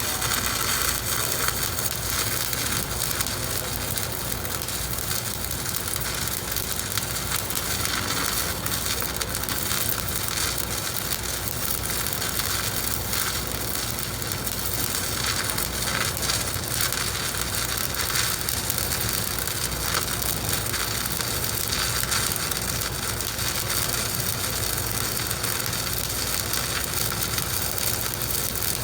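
Stick-welding (shielded metal arc) arc burning steadily while running a vertical weld, a continuous even crackle with no breaks.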